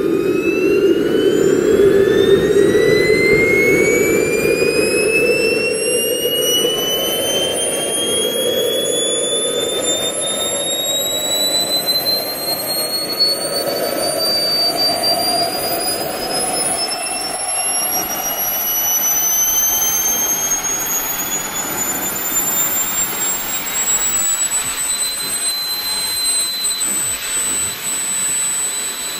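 Kingtech K-210 G4 model jet turbine spooling up through its automatic start sequence: a high whine climbs steadily in pitch over a rushing roar. The climb slows and levels off near the end as the engine settles at idle, around 34,000 RPM.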